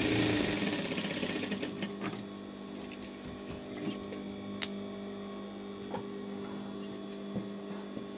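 Industrial sewing machine stitching fast for about the first second, then stopping. After that a steady hum stays, with a few light clicks.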